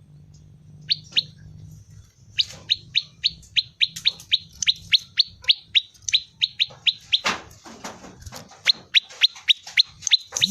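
Prenjak lumut (a prinia) singing its 'ceng-ceng' song: rapid, sharp, high chirps, each falling quickly in pitch, repeated about four a second in long runs. There is a short break about seven seconds in, with a few clattering knocks.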